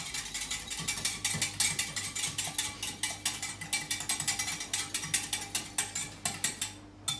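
Eggs being whisked fast in a glass measuring jug, the utensil clicking rapidly against the glass, several strokes a second, stopping suddenly near the end. It is the raw omelette mixture of two eggs, salt and a little water being beaten thin.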